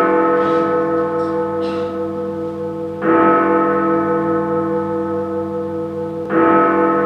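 A deep, bell-like chord rings out and slowly fades. It is struck again about three seconds in and again about six seconds in, each stroke ringing on over the one before.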